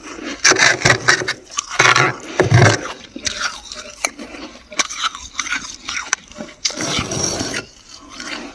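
Thick, fluffy freezer frost crunching as chunks are bitten off and scraped: an irregular string of crisp crunches and scrapes, with a longer crunch near the end.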